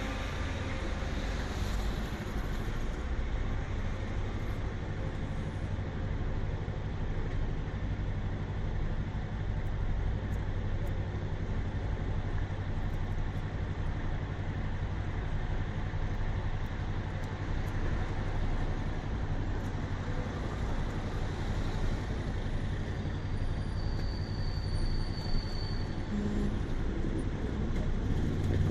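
Light road traffic at a city intersection: a steady low rumble of engines and tyres, with a brief high-pitched tone about twenty-four seconds in and a vehicle growing louder near the end.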